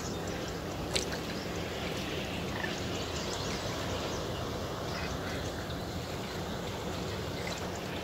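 A large flock of birds calling, a scatter of short chirps and squawks over a steady low background rumble, with one sharp click about a second in.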